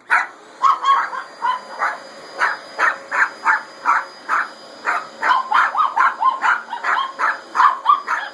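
Chihuahua barking over and over at a vacuum cleaner, short sharp barks coming about two to three a second without a break. A faint steady whine runs behind the barks.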